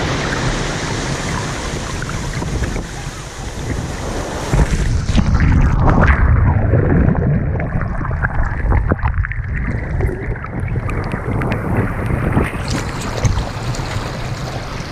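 Surf and swash washing over wet sand, with wind buffeting the microphone. About six seconds in the sound turns muffled as water covers the low-mounted camera, and it clears again near the end.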